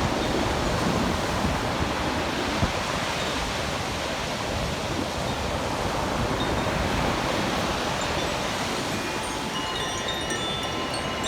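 Sea surf washing and wind buffeting the microphone, with a Koshi chime (a bamboo-tube chime with tuned metal rods) tinkling faintly. Its ringing tones are clearest in the last couple of seconds.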